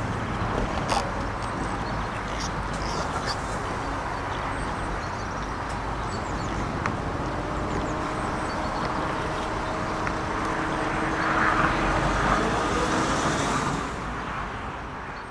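Steady outdoor noise, like road traffic, with a few small clicks. A vehicle's steady hum comes in during the second half and passes loudest a few seconds before the end.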